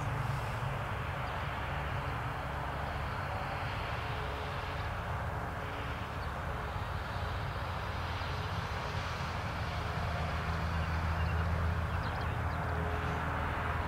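Two Garrett TPE331 turboprop engines of a Fairchild Swearingen Metro 23, turning five-blade propellers at takeoff power as the aircraft rolls, lifts off and climbs. A steady engine and propeller noise with a deep hum underneath, growing a little louder in the last few seconds.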